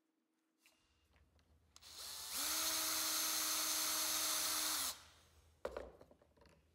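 Cordless drill boring a small reference hole through a brass piece. It spins up, runs at a steady pitch for about two and a half seconds, then winds down. A single short knock follows.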